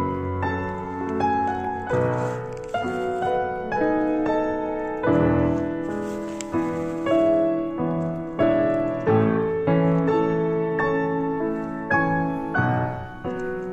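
Background instrumental music: a melody of quick, overlapping notes.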